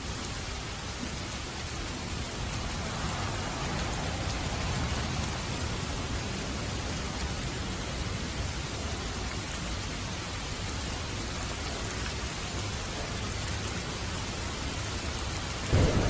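Steady heavy rainfall with thunder rumbling low in the background, swelling a few seconds in, and a sudden loud thunderclap near the end.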